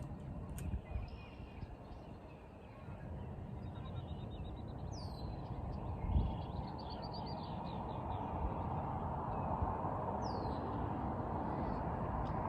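Birds calling over a steady low rush of outdoor noise: short high calls that sweep downward, repeated a few times, and a quick chattering trill in the middle. A couple of low thumps are heard, one about six seconds in.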